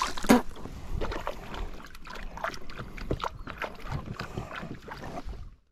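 Water splashing and slapping irregularly against the hull of an inflatable boat moving across choppy water. It cuts off suddenly near the end.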